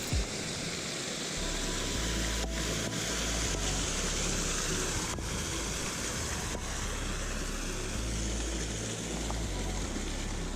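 Steady rushing of a pond waterfall, with an uneven low rumble of wind on the microphone underneath.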